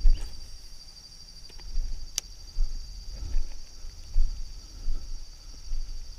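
Insects chirring in a steady high drone, with irregular low bumps and rumble throughout and one sharp click about two seconds in.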